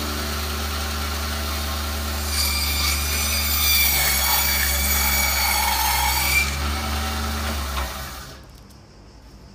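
Stainless steel meat and bone bandsaw running with a steady motor hum. For about four seconds in the middle, a louder rasping whine as the blade cuts. The machine is switched off near the end and the sound dies away.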